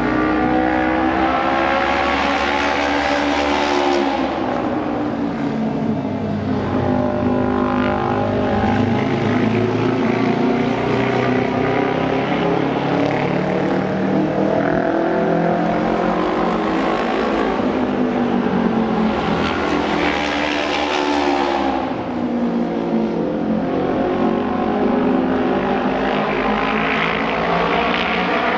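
Japanese auto race motorcycles' 600 cc twin-cylinder engines running hard as they lap an asphalt oval. The engine note rises and falls in pitch again and again as bikes accelerate, corner and pass by.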